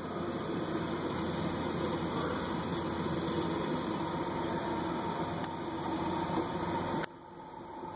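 Steady mechanical hum, a low drone with a faint steady tone over it, that cuts off suddenly about seven seconds in.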